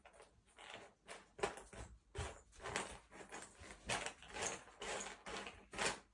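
Cardboard jigsaw puzzle pieces being sifted and pushed around by hand: a string of short rustling, scraping shuffles, about two a second.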